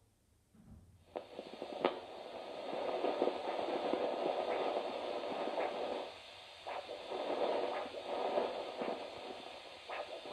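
Handheld 8 MHz vascular Doppler's loudspeaker, starting about a second in, giving a hissing, whooshing signal that swells and fades, with scratchy crackles from the probe sliding through ultrasound gel. The probe is searching over the ankle for the peroneal artery pulse.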